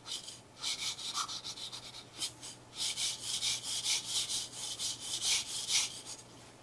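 Marker tip scrubbing back and forth on newsprint in a run of quick scratchy strokes, thickest in the second half and stopping near the end.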